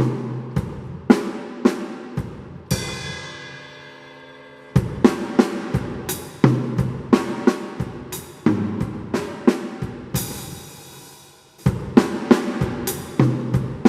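Drum kit playing a sebene groove and fill: repeated sharp snare and bass drum strokes with hi-hat and cymbals. A long ringing stroke dies away about three seconds in, and a cymbal wash sounds around ten seconds in.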